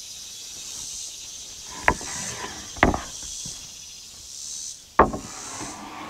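Rough-sawn hardwood board knocking against the stacked joists three times as it is lifted and slid across them, the last knock the loudest. Insects buzz steadily behind.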